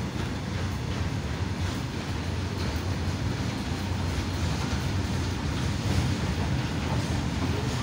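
Freight train of covered goods wagons rolling past on the track, a steady low rumble of wheels and wagon bodies that does not let up.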